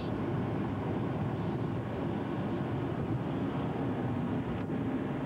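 Steady road and engine noise of a moving car, heard from inside the cabin, with a faint steady low hum under it.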